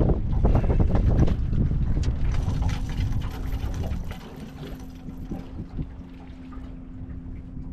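Wind buffeting the microphone for about the first second, easing off into quieter water noise with a faint steady hum from about two seconds in.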